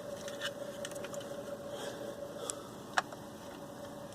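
Small clicks and handling noises from hands moving a motorcycle's LED taillight and its wiring, with a sharper click about three seconds in, over a steady faint hum.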